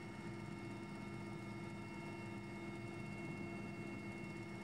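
Steady drone of a military helicopter's engines and gearbox heard from inside the cabin: an even noise with a few steady tones over it.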